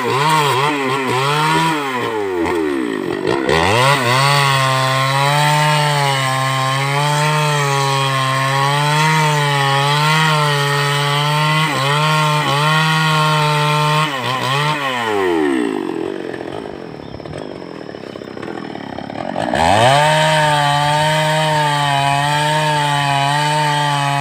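Two-stroke chainsaw held at high revs while its bar cuts through a log, the engine pitch wavering slightly under the load. About a third of the way in the revs sag and recover. Just past halfway the engine eases off and runs lower and quieter for a few seconds, then revs back up and cuts on.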